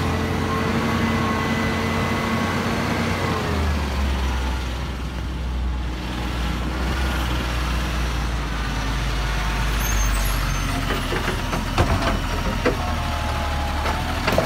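Garbage truck's diesel engine running, its pitch dropping about three and a half seconds in as the truck slows. Near the end the side-loader's hydraulic arm whines and clanks several times as it lifts a wheelie bin up over the hopper.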